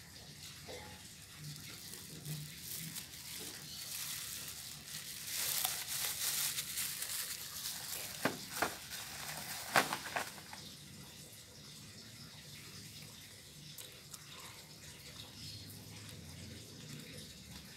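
Water running, louder for a few seconds in the middle, with three sharp knocks about halfway through.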